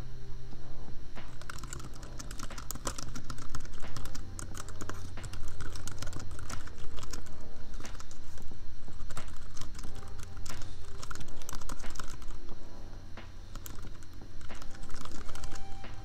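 Typing on a computer keyboard: quick, uneven runs of key clicks, with a short lull about two-thirds of the way through. Lofi background music with a steady bass plays underneath.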